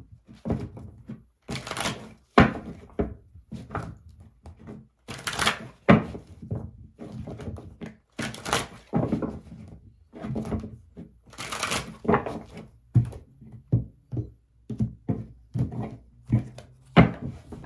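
A deck of tarot cards shuffled by hand: repeated sharp slaps and rustles of the cards. The loudest come every few seconds, with quicker, softer ones in between.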